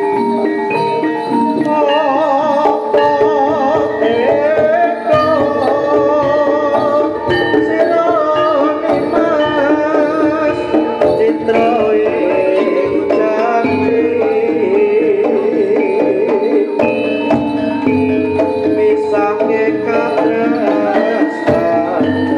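Javanese gamelan music for a jaranan horse dance: steady hand-drumming under a wavering, ornamented melody line, with sustained pitched tones from the ensemble.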